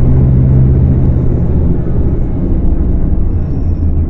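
Scania K250UB city bus's five-cylinder diesel engine running under load; its note drops lower about halfway through as the revs fall.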